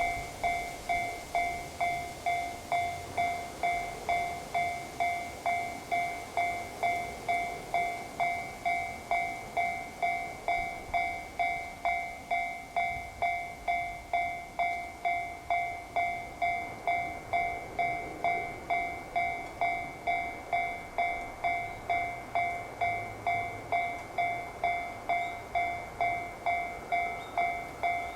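Japanese railway level-crossing warning bell ringing steadily, about two strikes a second, signalling that a train is coming.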